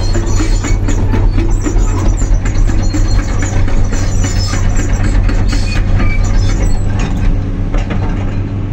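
Komatsu PC210 excavator's diesel engine running, heard from the cab, with frequent clicks and knocks as the boom and bucket move. The operator puts these down to a worn-out machine with play in every joint.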